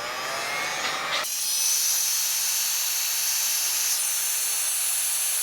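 Electric heat gun blowing steadily: an even rush of air with a faint high whine, shrinking heat-shrink tubing over a crimped wire joint.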